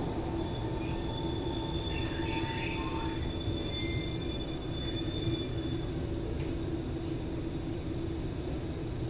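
SMRT C151 metro train heard from inside the car as it slows into a station: a steady low rumble from the running gear, with high whining tones that die away partway through.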